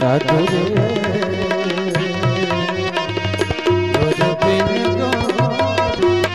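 Indian devotional bhajan music with no words: tabla drumming a quick rhythm under steady held melody notes.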